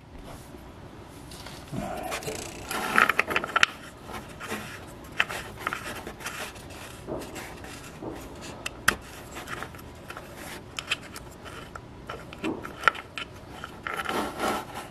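Hand working the plastic dipstick cap out of the oil fill port on a 125cc engine's side case: irregular rubbing, scraping and clicking, with a cluster of sharper clicks about three seconds in and again near the end.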